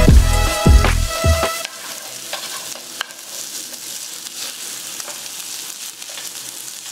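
Food sizzling in a frying pan, a steady hiss that takes over when background music with a beat cuts off about a second and a half in.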